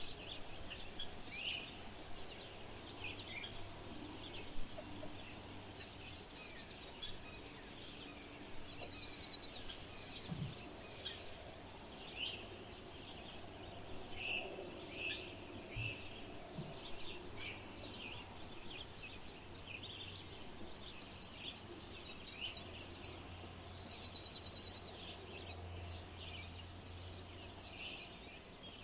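Small birds chirping and calling outdoors, short sharp chirps scattered every second or so, over a faint steady low hum.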